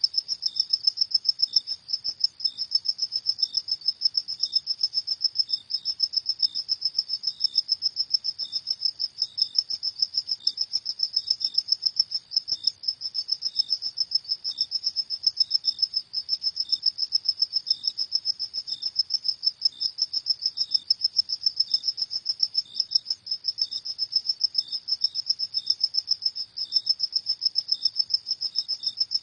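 Crickets chirping: a high, rapid, evenly pulsing trill that goes on without a break, with a second, slower chirping just beneath it.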